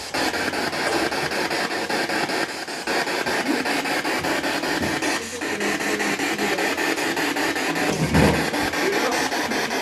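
Spirit box sweeping through radio stations: a steady loud hiss chopped into rapid even pulses several times a second, with brief snatches of broadcast sound breaking through.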